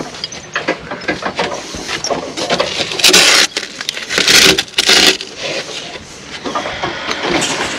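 Close handling noise at the work: rough scraping and rustling, loudest in a burst about three seconds in and again twice around four to five seconds.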